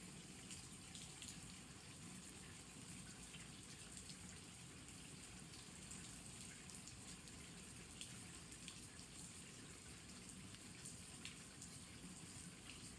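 Faint, steady rain falling, with scattered drops ticking now and then.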